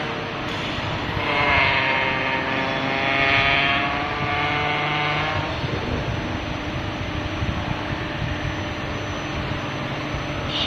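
CNC aluminium profile bending machine running: a pitched mechanical whine with many overtones swells twice over the first five seconds, then settles into a steady machine hum.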